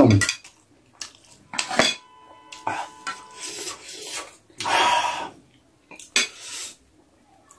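Ceramic plates and metal cutlery clattering. A plate is set down on another with a sharp clink that rings briefly about two seconds in, then a fork scrapes and taps on the plate.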